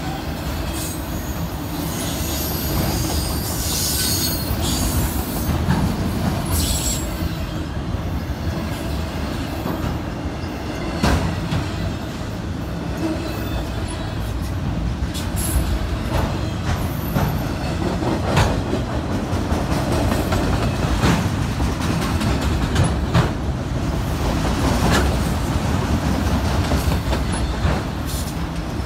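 Freight train cars rolling past on steel wheels in a steady rumble, with irregular clacks and clunks and a high wheel squeal in the first several seconds.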